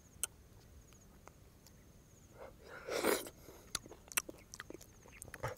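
Mangosteen being pulled apart and eaten close to the microphone: small sharp clicks and wet mouth and fruit sounds, with one louder noisy burst about three seconds in.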